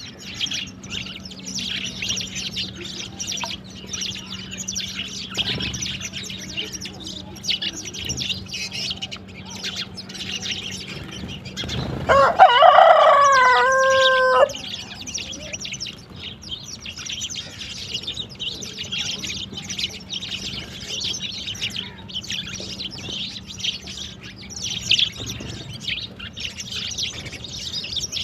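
A flock of sparrows chirping continuously. About twelve seconds in, a rooster crows once, loud and about two and a half seconds long, over the chirping.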